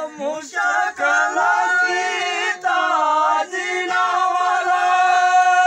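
Group of male voices singing a Dogri folk song (gittru) together, the melody moving for the first few seconds and then settling into one long held note near the end.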